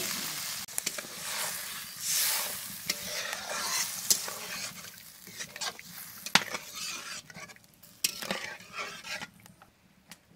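Spiced snail curry hissing in a metal wok just after water has been poured onto the hot fried masala, while a metal spatula stirs it, scraping and clinking against the pan every second or two. The sizzle dies away toward the end.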